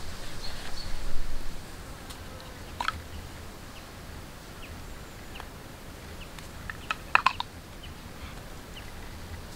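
Long wooden poles being handled and shifted over leaf litter, a rustle and scrape about a second in, then a few sharp wooden clicks and knocks, with a quick cluster of them about seven seconds in.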